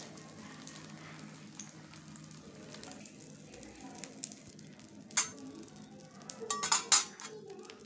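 Omelette mixture frying in oil on a flat iron pan, a faint steady sizzle. A sharp click about five seconds in and a quick cluster of louder clicks near the end, like utensils being handled.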